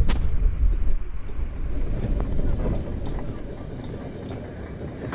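Low rumble of wind on the microphone and road noise from a moving scooter, growing gradually quieter toward the end.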